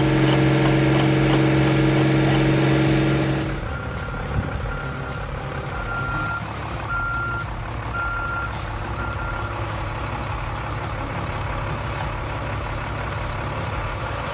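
Heavy vehicle's diesel engine running loud and steady, then a quieter engine with a reversing alarm beeping about six times, roughly once a second.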